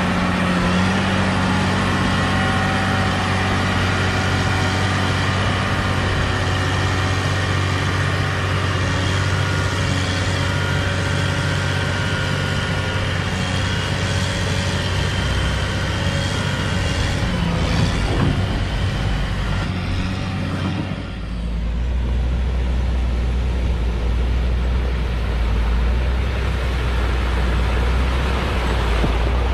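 Caterpillar 120 motor grader's diesel engine running steadily as it spreads gravel aggregate with its blade. About two-thirds of the way in the sound dips briefly, then turns to a deeper, duller rumble.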